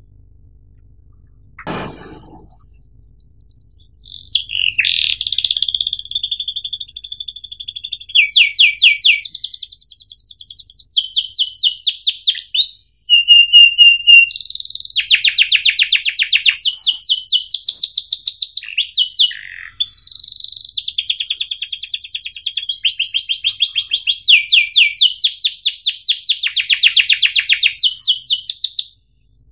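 Domestic canary singing a long, continuous song of fast rolling trills, chirps and short whistled notes, with a held steady note about halfway through. The song starts about two seconds in, right after a single click.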